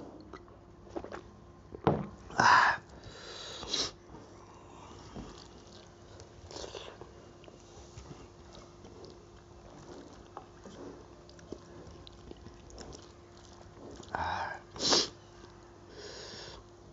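Close-miked eating: quiet chewing and mouth noises from rice and curry eaten by hand, broken by a few short, loud breaths through the nose, two close together about two to four seconds in, one near seven seconds and two around fourteen to fifteen seconds. A sharp knock about two seconds in, with a faint steady hum underneath.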